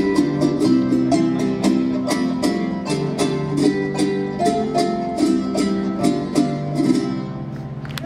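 Son jarocho played on a strummed jarana and a Veracruz harp: a steady, fast strummed rhythm under plucked harp notes. The piece ends just before the end.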